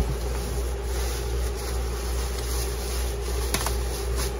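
Steady low background hum, with rustling of plastic wrapping and cardboard as a carburetor is lifted out of a shipping box, and two light clicks near the end.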